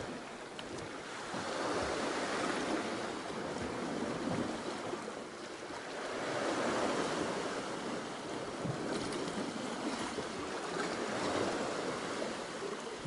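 Sea water washing around the boat, rising and falling in slow swells, with wind on the microphone.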